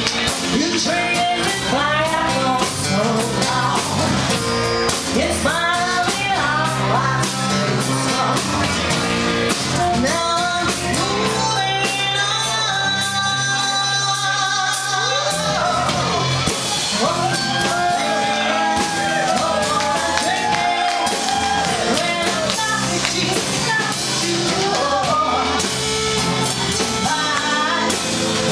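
Live band playing a song: a woman sings lead over acoustic and electric guitar and a drum kit, holding some long notes in the middle.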